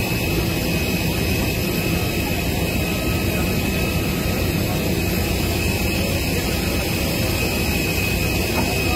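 Helicopter turbine engines running, a steady loud roar with a constant high-pitched whine.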